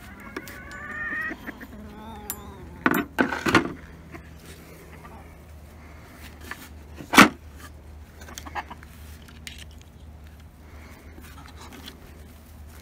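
Chickens clucking, with a short wavering call in the first second. A few sharp knocks come about three seconds in, and a louder single one about seven seconds in.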